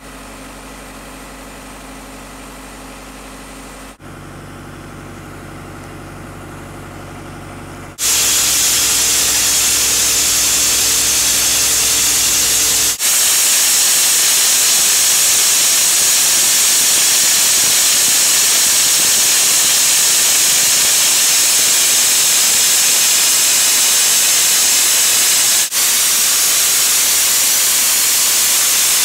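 A compressor engine hums steadily. About eight seconds in it gives way to a loud, steady hiss of a soda blaster: compressed air driving sodium bicarbonate out of a hand-held nozzle to strip antifouling paint from a yacht hull.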